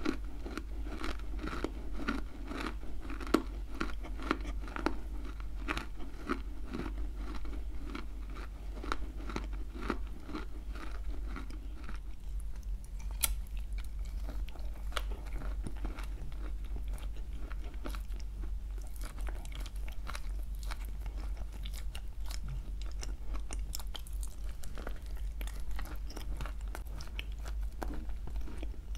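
Close-mic chewing of crunchy dry clay, a steady crunch about twice a second. About twelve seconds in it gives way to sparser, softer bites and chews of clay coated in a thick paste.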